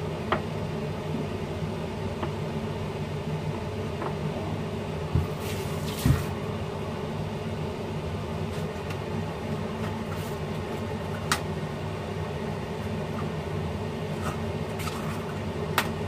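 Steady low mechanical hum, with a few sharp knocks and short rustles from things being handled at a kitchen counter.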